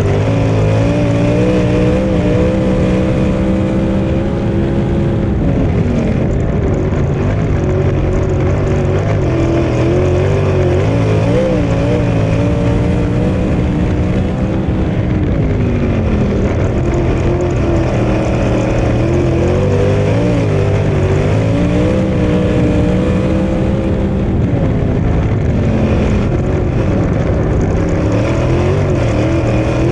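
Sprint car's V8 engine at racing speed, heard up close from a camera mounted on the car. Its pitch falls and climbs again every several seconds as the driver lifts off and gets back on the throttle around the turns of the dirt oval.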